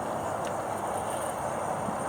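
Steady rushing of wind and water as a small sailboat sails under mainsail, picked up by a camera mounted up the mast.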